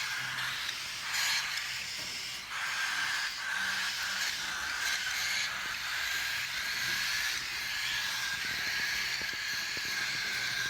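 Many parrots calling together, a dense, steady chatter with louder squawks now and then.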